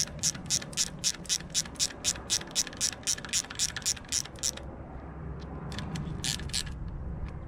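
Ratchet wrench clicking at about four clicks a second as a cam bearing cap screw is wound in, stopping a little past four and a half seconds in and then clicking a few more times near the end.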